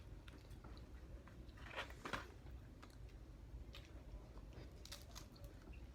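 Someone quietly eating crab: faint chewing with scattered small crackles and clicks, a few a little louder about two seconds in.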